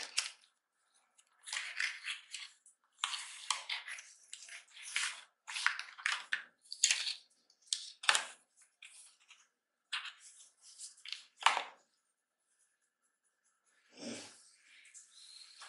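Hands handling paper and plastic packaging: short bursts of crisp rustling and clicking, with brief pauses between them and a faint steady high whine underneath.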